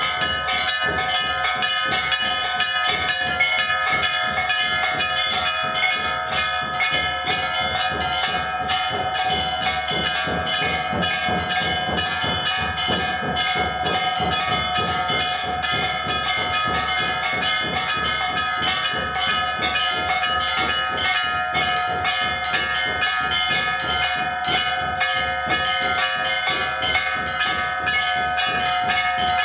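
Hindu temple bells rung rapidly and without pause, the strikes coming several times a second so their ringing tones overlap into one steady clangour.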